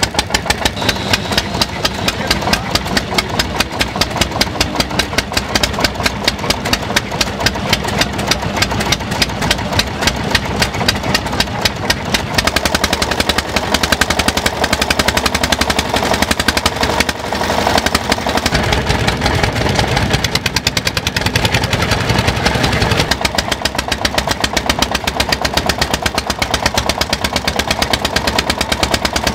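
Small single-cylinder stationary engine running, its exhaust firing in a steady, rapid, even beat.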